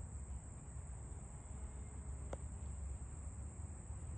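Quiet outdoor ambience: a steady high, thin insect-like drone over a low rumble, with a single sharp click a little past two seconds in.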